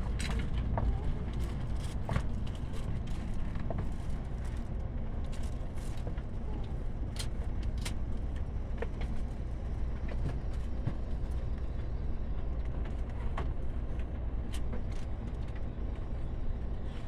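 Steady low rumble of an N700S Shinkansen train running, heard inside the passenger car, with scattered small clicks and knocks.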